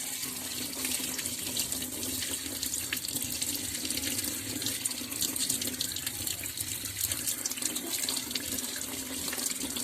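Tap water running steadily into a sink while peeled ginger is washed under the stream.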